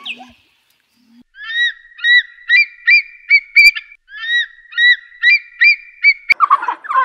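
A bird calling in repeated short, honking notes, about three a second, in two runs with a brief pause between them. Near the end a sharp click is followed by a jumble of chattering calls.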